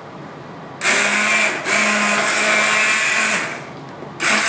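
Electric immersion (stick) blender running in a pot of soup, puréeing boiled broccoli. It switches on about a second in, breaks off for a moment, runs about two more seconds and stops, then starts again near the end.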